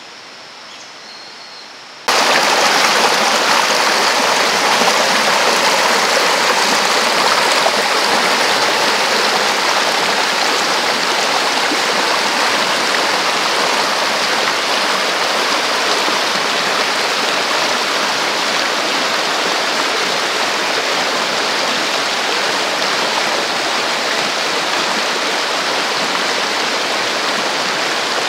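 Shallow mountain stream rushing over rocks: a loud, steady rush of water that cuts in suddenly about two seconds in, after quieter outdoor ambience.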